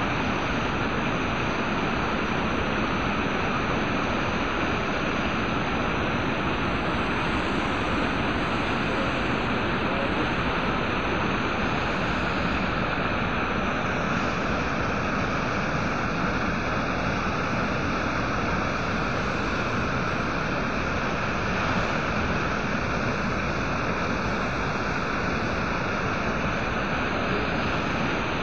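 Muddy floodwater rushing steadily over a washed-out road, spilling over the broken asphalt edge like a small waterfall.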